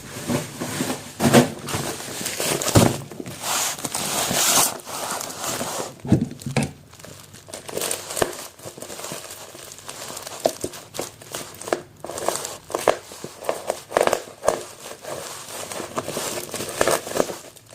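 Packaging crinkling and rustling as it is opened and handled by hand, in irregular crackly bursts.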